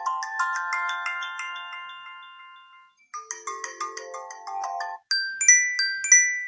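iPhone SE preset ringtones playing one after another. A quick run of chiming electronic notes climbs in pitch and fades out, then starts over and is cut off about five seconds in. A different ringtone of four bell-like chimes in two pairs follows and rings out near the end.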